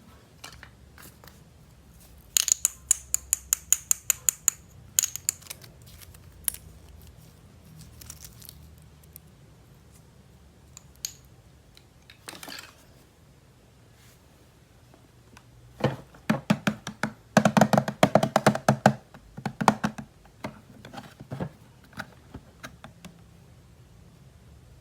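Hard plastic toy pieces being handled: a quick run of sharp, crisp clicks a few seconds in, scattered single clicks, then a denser burst of clattering taps about two-thirds of the way through.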